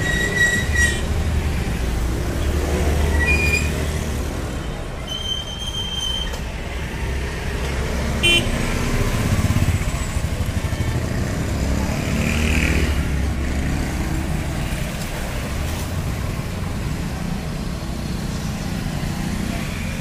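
Busy street traffic, with motorcycle and car engines running as they pass and several short vehicle horn toots: one at the start, brief beeps about three and eight seconds in, and a longer toot of about a second near five seconds in.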